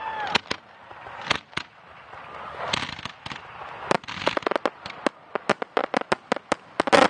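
Aerial fireworks bursting: separate sharp reports at first, then a quickening string of bangs from about four seconds in, ending in a loud dense cluster near the end.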